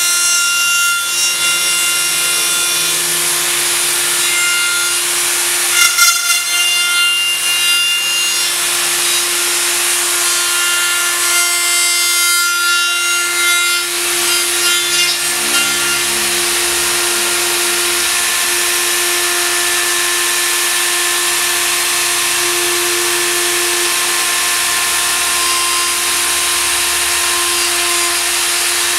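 Handheld plunge router running at full speed, its bit cutting along an aluminium channel profile: a steady high motor whine with rough cutting noise, with a few louder, rougher spells in the first half.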